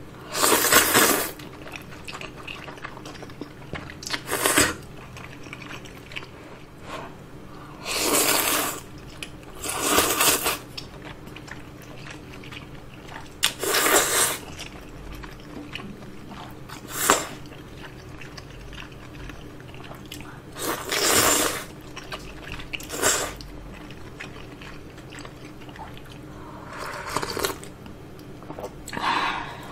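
Slurping udon noodles and hot broth from a bowl, about ten loud slurps a few seconds apart, with quieter chewing in between, close to the microphone.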